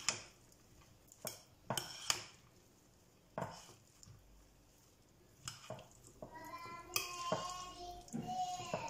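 Metal spoon and fork clinking and scraping against a glass baking dish while tossing a salad: a few separate clinks in the first half. In the last three seconds a longer pitched squeak, held at a steady pitch.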